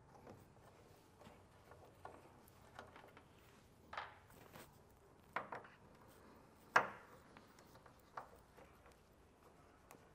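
A few scattered light clicks and metal clinks from a ratchet with a T15 Torx bit backing out the taillight screws, and from the loose screws being handled. The sharpest click comes about two-thirds of the way through.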